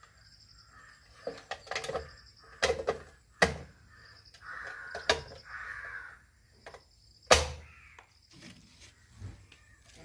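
Plastic front cover being fitted and pressed onto a wall-mounted rotary isolator switch box: a series of sharp clicks and knocks, the loudest about seven seconds in. A crow caws twice in the middle.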